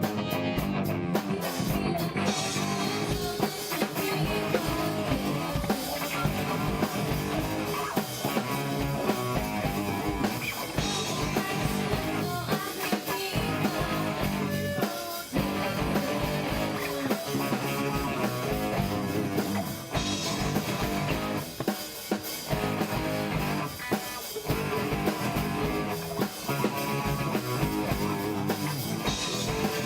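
Live rock band playing a song, with guitar, drum kit and bass guitar over a steady beat.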